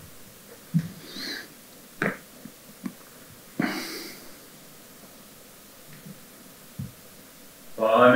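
A hushed room with a few short breaths, sniffs and small knocks. Near the end a lone voice begins singing a regilaul, the Estonian runic folk song, on a long held note.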